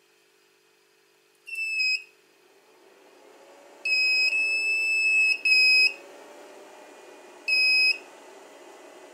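The 2000 W power inverter's buzzer gives a series of high-pitched beeps of uneven length, the longest about a second and a half, as it is connected to a car battery: the low-power warning this inverter gives. A steady whir comes up underneath from about two and a half seconds in.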